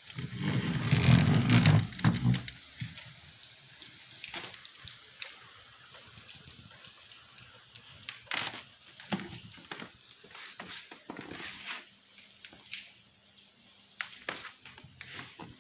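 A domestic cat's low, drawn-out vocalisation for about two seconds at the start. Scattered light taps and knocks follow as the cat moves along the windowsill and down to the wooden floor.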